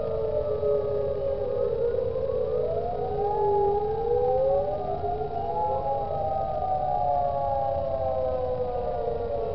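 Several lahar warning sirens, Whelen 3016 and Federal Signal units, wailing together in a test of the warning system. Their overlapping tones each rise fairly quickly and then fall slowly, out of step with one another.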